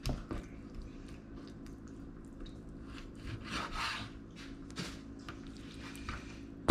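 Knife slicing and trimming a raw chicken thigh on a cutting board: a few faint scraping strokes against the board.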